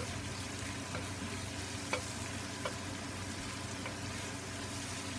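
Ground chicken and basil sizzling in a frying pan while a wooden spatula stirs and turns it, with a few light knocks of the spatula against the pan.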